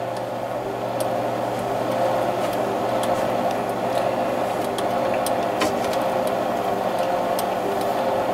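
Presto Pizzazz rotating pizza oven running: a steady motor hum as its tray turns, with faint scattered ticks.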